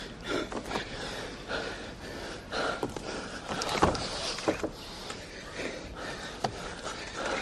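Two mixed martial arts fighters grappling on the ring mat: heavy breathing and the scuffle of bodies shifting, in short uneven bursts, with a sharp knock about four seconds in.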